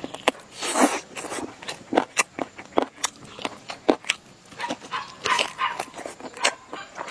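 Close-miked eating sounds: chewing and lip-smacking, with an irregular run of sharp, crunchy clicks and a few short wet smacks.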